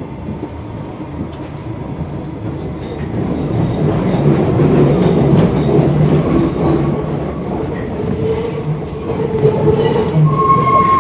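MF 77 Paris Métro train heard from inside the car as it pulls out of a station into the tunnel. The rumble of wheels on rails and the motor hum grow louder over the first few seconds as it gathers speed, then hold steady. A brief higher-pitched tone comes in near the end.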